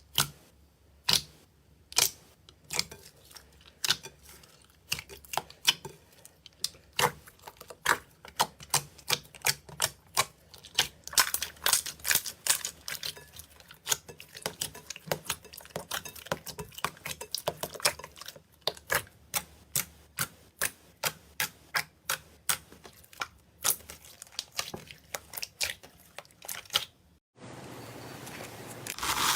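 Slime being pressed and worked until its trapped air bubbles pop in sharp, irregular clicks, a few each second. In the last two seconds this gives way to a steady rustling hiss.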